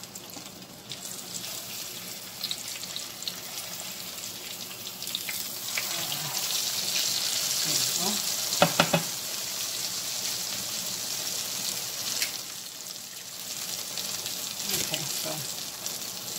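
Breaded fish fillet frying in hot oil in a skillet, a steady sizzle that swells through the middle as the fillet is turned over with tongs and a spatula. A few quick clinks of the utensils against the pan a little after halfway.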